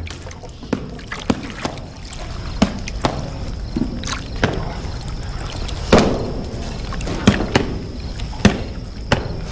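Water sloshing in a large pot stirred with a wooden pole, with irregular knocks and thuds from work going on around it, about ten in all, the loudest about six seconds in.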